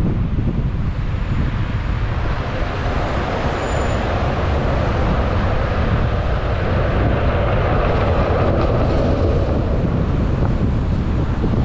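Road and tyre noise of a car driving through city traffic, with low wind rumble on the microphone. A louder rushing hiss swells up a few seconds in and fades back near the end, like a vehicle passing close by.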